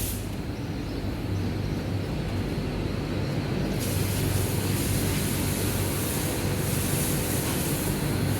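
Steady machinery drone with a constant low hum, joined by a higher hiss about four seconds in.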